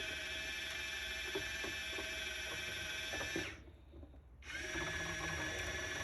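Goser portable mini washing machine's small motor buzzing steadily in a sink of water, cutting out for about a second a little past the middle and then starting again.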